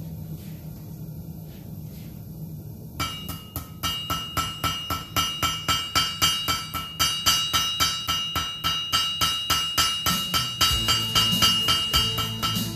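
Rapid hammer blows on a steel anvil, about three to four a second, starting about three seconds in, each strike ringing with a clear bell-like tone.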